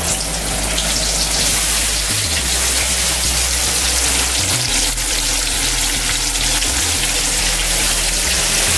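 Flour-dredged chicken breast deep-frying in a pot of hot oil: a steady sizzling hiss.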